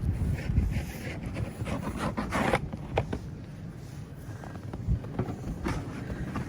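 Wind rumbling on the microphone, with a few short scrapes and crunches from snow-clearing work, the clearest about two and a half and three seconds in.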